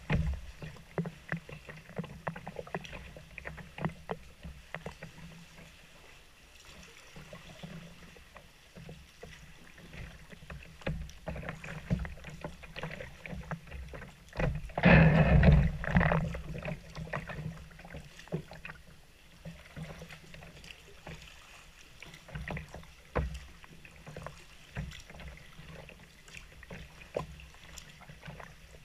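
Kayak being paddled through calm sea water: small splashes and drips from the paddle and water lapping against the plastic hull, with scattered light clicks and knocks. About halfway through comes a louder rush of sound lasting about a second.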